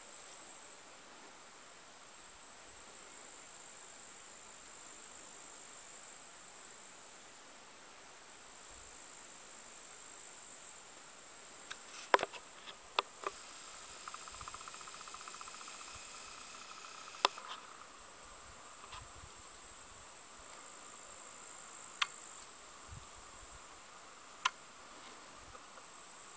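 Grassland insects chirring steadily at a high pitch, with a few sharp clicks scattered through it, the loudest about twelve and seventeen seconds in.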